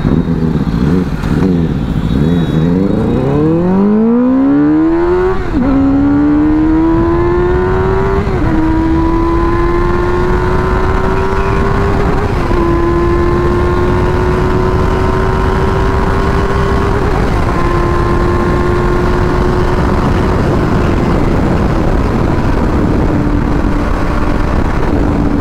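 Benelli motorcycle engine under hard acceleration, heard from on board. The engine note climbs steeply for the first few seconds, then drops and climbs again through several upshifts before holding a steady note at cruising speed.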